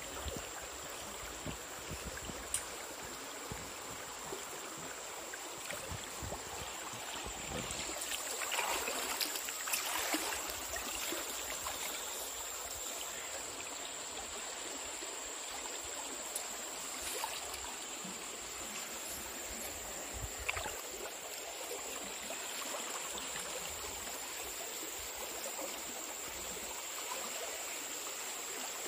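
Shallow river water running steadily, a constant burble of flowing water. A thin, steady high tone joins after several seconds.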